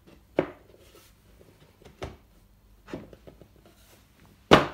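Plywood panels knocking together as a side panel is fitted into the slots of a wooden box: four sharp knocks, the last and loudest near the end, with light clicks and rubbing of wood between them.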